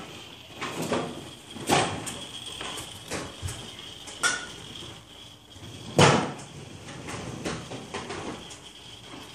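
Hobby servos of a geared pan-and-tilt antenna tracker moving in short, irregular bursts, with a faint steady high whine underneath; the loudest burst comes about six seconds in.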